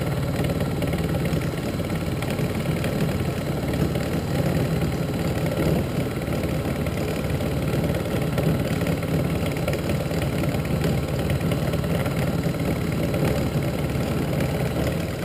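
Titan TM25V benchtop milling machine cutting bright mild steel with a 9 mm end mill under a steady X-axis table feed, conventional milling at about 530 rpm. A steady motor and spindle hum sounds under the even noise of the cutter working through the steel.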